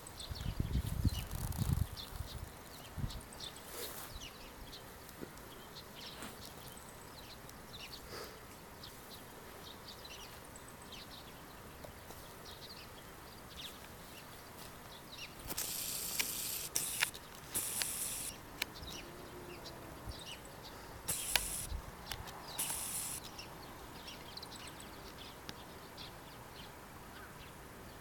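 Outdoor ambience with many faint chirps and ticks throughout. There are a few low thumps in the first two seconds, and four short bursts of hissy rustling about halfway through and a little later.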